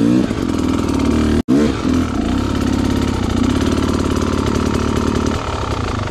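Dirt bike engine blipped and revved at low speed, the pitch rising and falling near the start and again just after the sound cuts out for an instant about a second and a half in, then running steadily at low revs.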